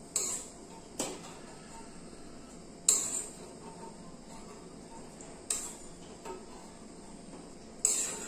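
Steel spoon clinking against a small kadhai as fried dry fruits are scooped out of ghee: five sharp metallic clinks at uneven intervals, with a softer one between the last two.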